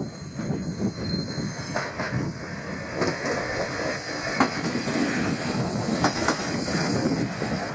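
Yodo Line diesel railcar passing over the level crossing: a steady rumble of wheels on rail with scattered knocks as the wheels cross the rail joints, and a thin, high wheel squeal in the first few seconds.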